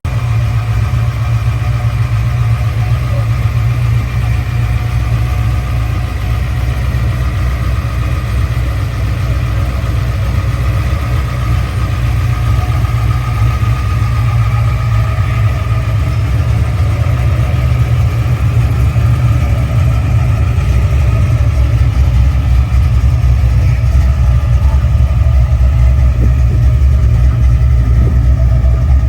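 Car engine running steadily with a low rumble, growing a little louder over the last several seconds.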